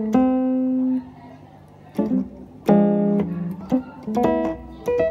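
Yamaha PSR-E433 keyboard playing an electric-piano voice with its filter cutoff turned down for a purer EP tone. A held note comes first, then after a pause a fuller chord about halfway through, then a few short quick notes.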